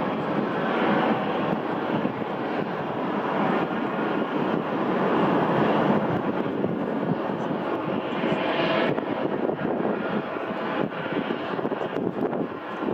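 Jet airliner engines running at taxi power, a steady even noise that grows slightly brighter about two-thirds of the way in.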